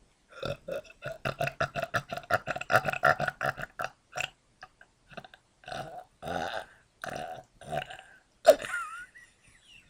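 A person belching in imitation of a bullfrog: a fast run of short belches, about five or six a second, then slower, longer belches, the loudest one near the end.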